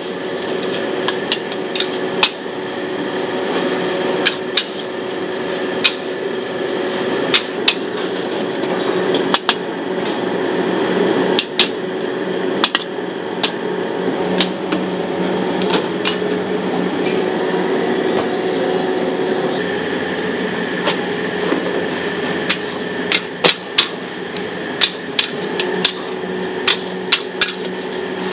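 Metal wok spatula striking and scraping a steel wok during stir-frying: irregular sharp clanks, frequent at the start and again near the end, sparse in the middle. Under them runs a continuous sizzle with a steady hum.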